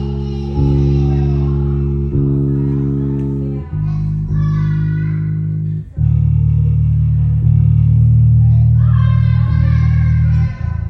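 Lakland Skyline 55-02 five-string electric bass played through speakers: long, sustained low notes, each held for about one and a half to two seconds before the next is plucked.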